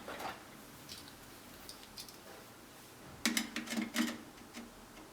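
Small clicks and taps of hands and tools working on wires and plastic sensor clips in an electrical panel: a few faint ones, then a cluster of several sharper clicks about three seconds in.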